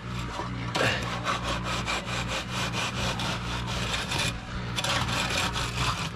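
A screed board being worked back and forth over wet concrete, levelling it off with quick rasping scrapes of about four strokes a second, with a short pause just past the middle. A steady low machine hum runs underneath.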